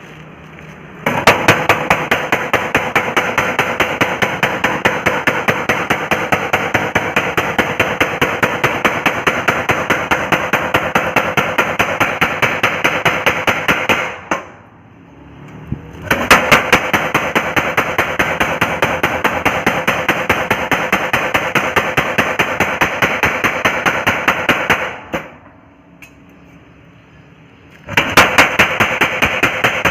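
Mechanical blacksmith's power hammer pounding in rapid, evenly spaced blows. It stops twice, about halfway through and again near the end, each time starting again a couple of seconds later.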